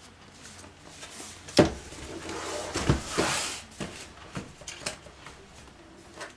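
A cardboard graphics-card box being handled: a sharp knock about a second and a half in, another knock near the three-second mark, a brief brushing hiss of cardboard rubbing, then a few light taps.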